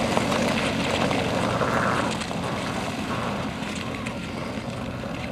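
A pack of speed skaters' blades scraping over rough natural ice, a dense rasping hiss that drops off after about two seconds as the group moves away.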